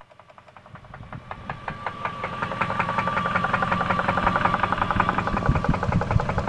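Jeep 4.7-litre V8 running at idle with a rapid, even knock, growing louder over the first three seconds, with a steady high whine under it. The knock sounds to the owner like it comes from the bottom end, even though oil pressure is good.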